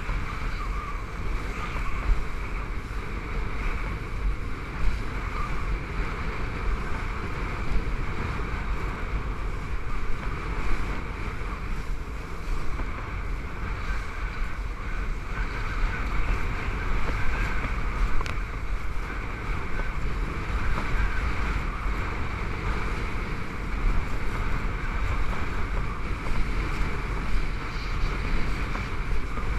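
Kiteboard planing through choppy sea water, a steady rushing hiss of spray, with wind buffeting the GoPro Hero3 Silver as a low rumble.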